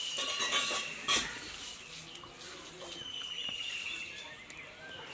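Wet slurping, sucking and chewing as peeled orange segments are eaten straight off plates without hands, with many small mouth clicks and a sharp knock about a second in.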